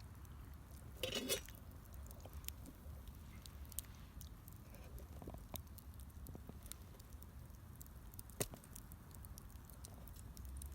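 Wood fire burning in a small fire stand, crackling faintly with sparse irregular pops. There is a louder burst of crackling about a second in and one sharp snap near the end.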